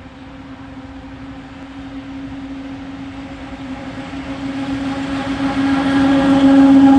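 ET22 electric freight locomotive approaching: a steady, even-pitched electric hum with overtones that grows steadily louder as it nears.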